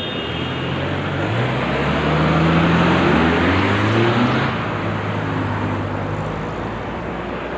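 Street traffic with cars driving past close by, one car's engine rising in pitch as it accelerates and then running steadily.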